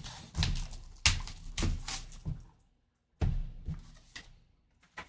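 Plastic shrink wrap being torn and peeled off a sealed trading-card box: bursts of crinkling and tearing, a short pause, then more crinkling.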